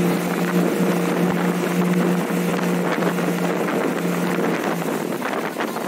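A 1986 Ski Supreme ski boat's 351 Windsor Ford small-block V8 runs at a steady pitch as the boat moves across the water, with wind buffeting the microphone. The engine note fades about four and a half seconds in.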